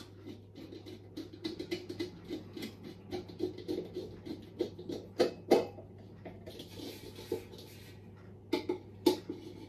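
A hand screwdriver driving screws through the metal lid of an electric grill into its handle, making small irregular clicks and scrapes of metal on metal. There are a few sharper clicks about five seconds in and again near the end, and a short rasping scrape around seven seconds in.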